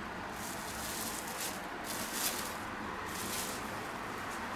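Clear plastic wrap rustling and crinkling in several soft, irregular bouts as it is pulled off a piece of meat by hand.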